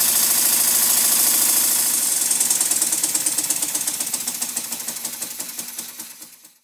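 Small brass horizontal model steam engine running on compressed air, its exhaust beats coming fast and even. About two seconds in it begins to slow, the beats spreading out and growing fainter until they die away near the end.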